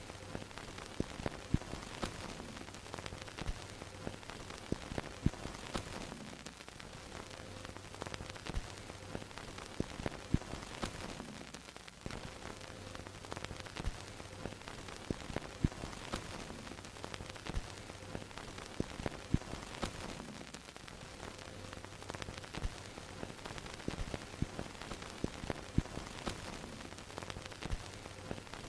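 Vintage film projector running: a steady hiss with a low hum that fades in and out every few seconds, and irregular crackles and pops of dust and scratches on the film.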